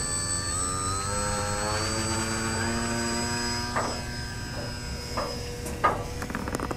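Battery-powered electric RC seaplane's motor and propeller whining, its pitch sliding down over the first couple of seconds and then holding steady. A few short knocks come in the second half.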